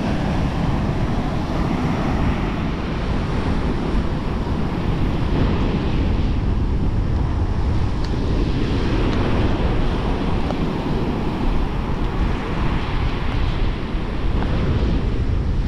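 Ocean surf breaking on a sand beach, with wind buffeting the microphone in a steady low rumble.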